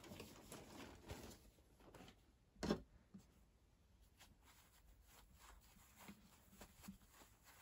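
Near silence with faint rustling of hands handling a crocheted piece and pushing fiber stuffing into it. One brief soft knock about two and a half seconds in.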